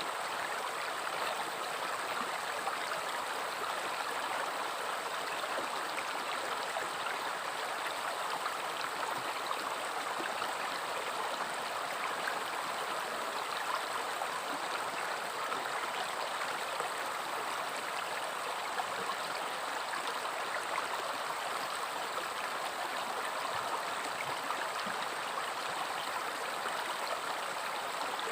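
A river's flowing water rushing and babbling steadily, without change.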